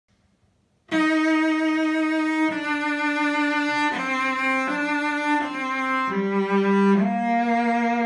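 Late 19th-century German cello played with the bow: after about a second of silence, a slow melody of sustained notes, changing pitch about once a second.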